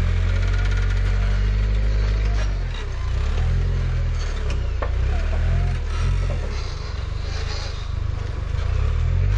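Suzuki Samurai rock crawler's engine running under load as it crawls over boulders, steady at first, then rising and falling repeatedly as the throttle is worked up and down. A single sharp knock near the middle.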